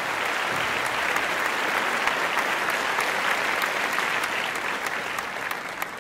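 Applause: many hands clapping in a dense, steady patter, starting to fade near the end.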